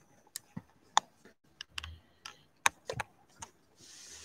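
Handling noise from the camera being set up: irregular sharp clicks and taps of fingers on the device, with a brief rustle of clothing near the end.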